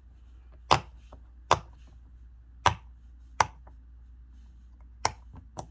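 Heart-shaped silicone push-pop fidget toy having its bubbles pressed one at a time: six sharp pops at uneven gaps, roughly one a second.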